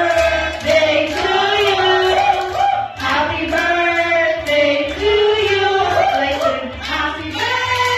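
Voices singing a song over background music.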